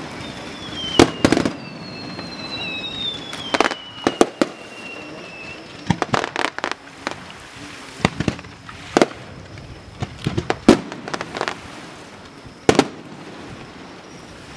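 Aerial fireworks shells bursting, sharp bangs coming in quick clusters every second or two. A long falling whistle runs through the first few seconds.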